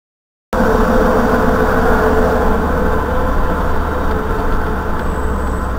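Silence for the first half second, then steady vehicle driving noise: the engine and road rumble of a car moving along a multi-lane road, picked up by its dashcam inside the cabin.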